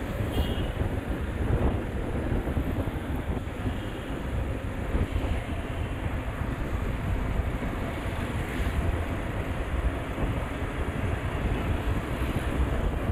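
Wind buffeting the microphone with steady road noise from a motorbike being ridden along a road.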